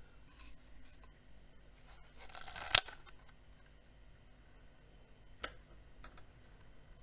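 Plastic housing of a Xiaomi Weiyuan handheld bladeless fan being pried open: a short scraping creak about two seconds in that ends in one sharp snap as it comes apart, then a lighter click a few seconds later.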